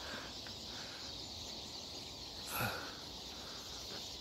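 A large flock of siskins twittering overhead, a steady high chorus of calls. One brief louder noise about two and a half seconds in.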